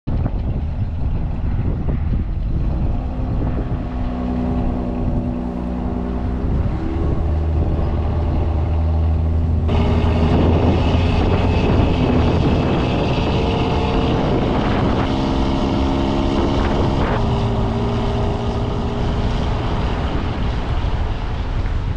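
A vehicle's engine and road noise while driving, with the engine pitch shifting now and then; about ten seconds in the sound changes abruptly to a louder, hissier mix.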